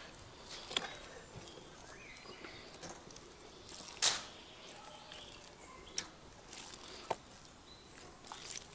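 Knife cutting raw meat on a wooden cutting board: quiet slicing with a few short, sharp clicks and scrapes where the blade meets the board, the loudest about four seconds in.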